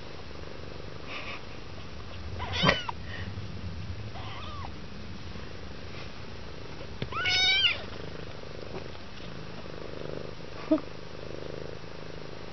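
Mother cat purring steadily while her young kittens nurse, with a few short, high-pitched kitten mews: one a little under three seconds in and a longer, wavering one about halfway through.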